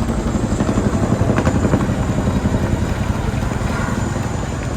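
Army helicopters flying low overhead, their rotors beating steadily. The sound is loudest about halfway through, then eases a little.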